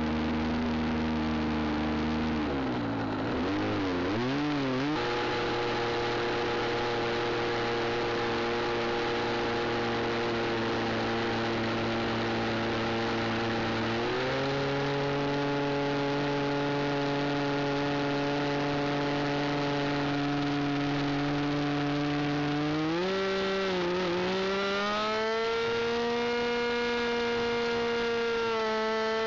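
Small single-cylinder engine of an RC Basic 2000 aerobatic model plane running, heard close up from on board as a steady buzzing tone. Its pitch wavers briefly about three to five seconds in, steps up about halfway through, then climbs to a higher steady pitch near the end as the revs rise.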